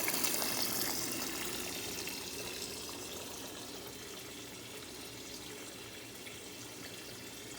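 Water running out of the tankless water heater's output line hose during a descaling flush, a steady rush that grows fainter over the first few seconds and then holds steady.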